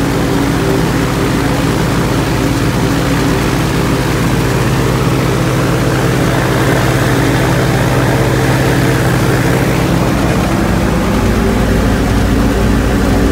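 Viking aircraft engine running steadily, powered from its battery for a run-down test.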